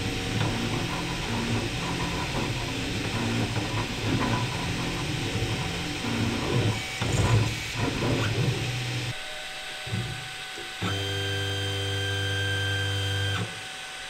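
Kywoo Tycoon 3D printer printing: fans running steadily under stepper motors that buzz in quickly changing tones as the print head and bed move. Near the end a steady motor whine holds for about two and a half seconds, then stops. The printer's Z-axis motor is not on a silent driver.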